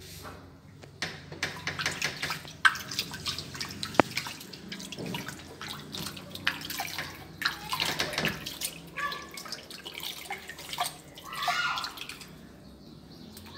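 Water sloshing and splashing in a filled bathroom sink as a hand rubs and scoops water over a kitten being bathed, in irregular splashes with drips.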